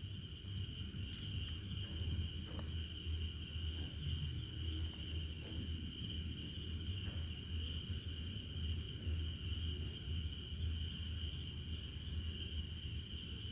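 Faint steady high-pitched trill, insect-like, over a low steady hum, with a few soft taps.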